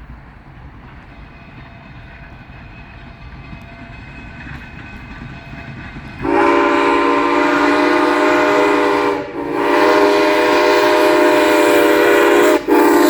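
Durango & Silverton Railroad steam locomotive: the train's rumble grows louder, then about six seconds in its steam whistle blows a loud, long chord of several notes, broken once partway through and again for a moment near the end.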